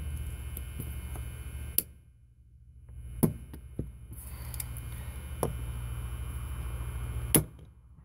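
Sharp metallic clicks, about five of them, from small hand tools working at a seized detent pin in a Dexter deadbolt lock cylinder. The loudest two come about two seconds in and near the end, over a steady low hum.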